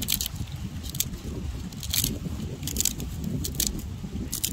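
Wind rumbling on the microphone, with short dry crinkles of a thin plastic bag every half second or so.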